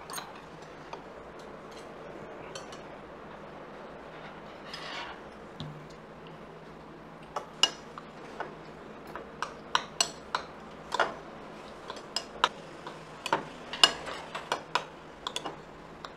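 Spoon and cutlery clinking and scraping against a bowl while mixing rice. There is a low steady room hum for the first few seconds, then from about seven seconds in a run of sharp clinks, several a second.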